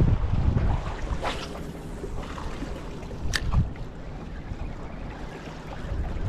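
Wind buffeting the microphone in gusts on a small fishing boat, heaviest in the first second, over a wash of water, with two short sharp clicks a little after one second and at about three seconds.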